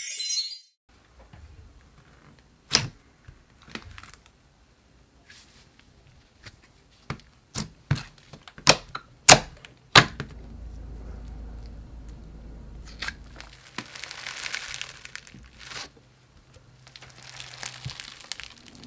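Slime being squeezed and pressed by hand: a string of sharp pops and clicks, then longer stretches of crinkling and crackling, the last of them from foam-bead slime (floam) being squeezed near the end.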